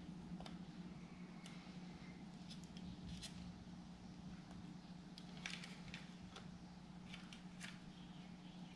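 Faint scattered clicks and light scrapes of wires and a small screwdriver being handled in a plastic electrical wall box, over a steady low hum.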